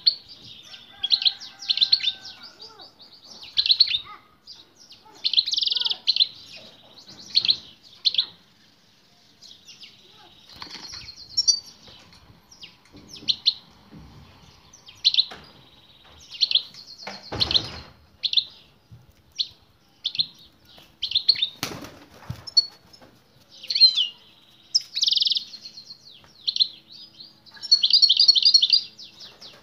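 European goldfinch singing in repeated short runs of rapid twittering chirps, with brief pauses between phrases. A couple of wing flutters and knocks as the bird hops about its wire cage, the loudest about two-thirds of the way in.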